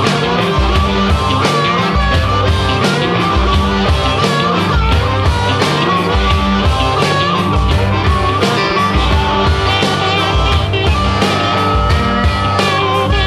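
Raw electric blues-rock recording: electric guitar lines over a driving drum beat and a heavy low end.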